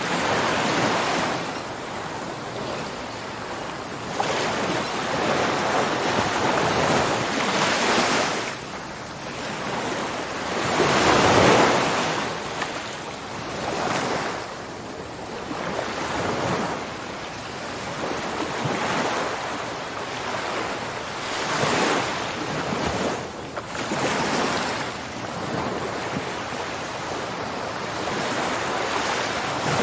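Ocean surf: waves rushing in and washing back, each surge swelling and fading every few seconds, the largest about eleven seconds in.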